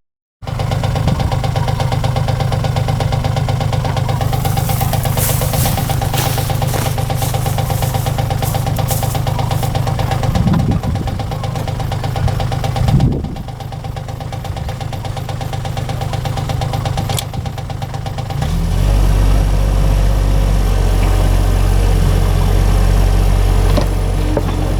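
Small work-machine engine running steadily, with a steady whine over it and a run of metallic clanks about five seconds in. About three-quarters of the way through, the sound shifts to a deeper, heavier engine note.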